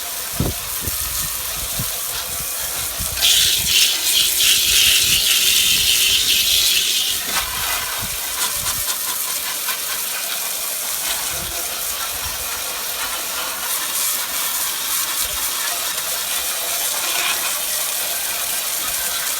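Garden hose spraying water onto a barbecue griddle to rinse off degreaser and loosened burnt-on food: a steady hiss that grows louder and sharper for about four seconds, starting about three seconds in.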